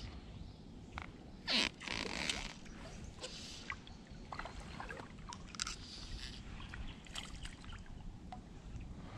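Fly line being stripped in and cast from a kayak: a series of short scraping swishes, the loudest about a second and a half in.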